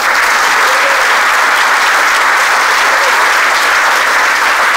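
Audience applauding, a dense and steady clapping that starts just before and keeps up throughout.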